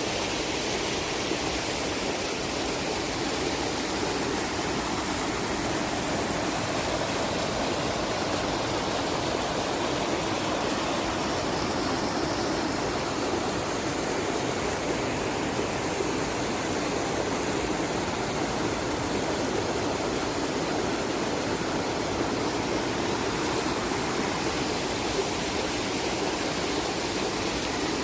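Rushing water of a creek, a steady even rush with no breaks.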